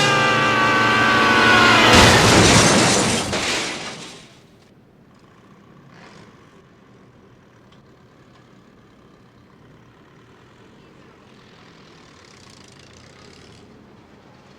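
Film soundtrack: sustained orchestral chords end in a sudden loud boom about two seconds in, which dies away over the next two seconds. Quiet background ambience follows, with a few faint sounds.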